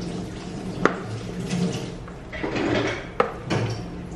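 Wooden spoon stirring diced potato, carrot and green beans in a large plastic bowl: soft wet mixing noise, with a sharp knock of the spoon against the bowl about a second in and two more just past three seconds.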